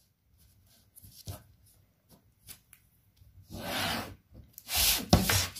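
A pen drawn along the edge of a wooden ruler across pattern paper, a scratchy rub about three and a half seconds in, after a few light ticks of the ruler being set down. Near the end come louder sudden handling noises as the ruler and paper are shifted.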